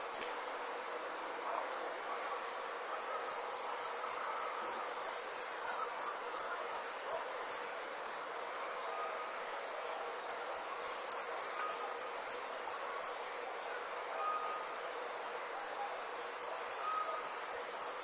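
Evening insects: one high-pitched insect trills steadily while another chirps loudly in runs of about three chirps a second. The chirping comes in three bouts: a long one starting about three seconds in, another from about ten seconds, and a third near the end, with pauses of a few seconds between them.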